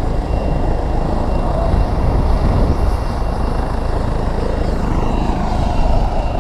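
A steady, loud low rumble with no clear engine note, and a faint whine that falls in pitch near the end.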